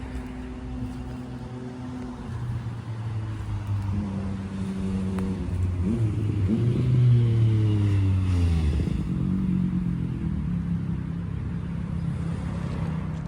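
A motor vehicle's engine running, its pitch gliding up and down, loudest about seven seconds in and falling in pitch soon after.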